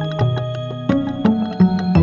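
Background music: a gentle instrumental track with held notes, a moving bass line and light plucked notes.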